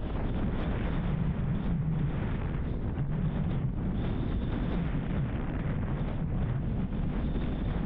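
Wind buffeting the microphone over the low, wavering rumble of a moving vehicle and its tyres on the road, steady throughout.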